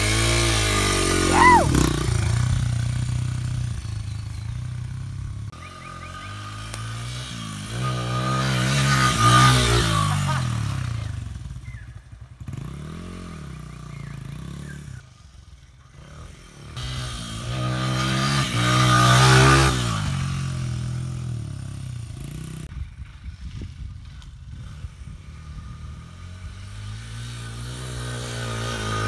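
KTM 125 two-stroke dirt bike with an FMF exhaust lapping a track. The engine revs up hard and backs off several times, with quieter off-throttle stretches between the surges, and it is climbing again at the end.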